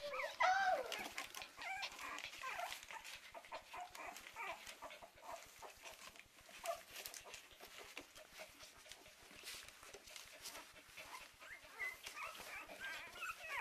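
A litter of three-week-old West Highland White Terrier puppies squeaking and whimpering in many short, high calls, the loudest about half a second in, falling in pitch. Small clicks and rustles of the pups scrabbling on the newspaper lining run under the calls.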